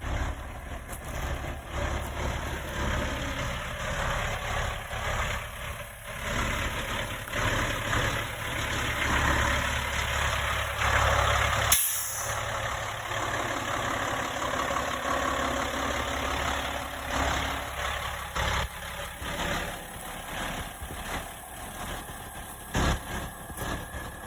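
A heavy vehicle's engine running steadily, with one sharp hiss, like an air brake release, about halfway through.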